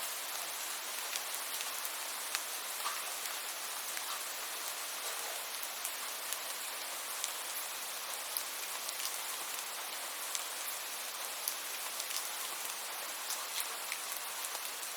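Steady rain, an even hiss with individual drops ticking sharply here and there.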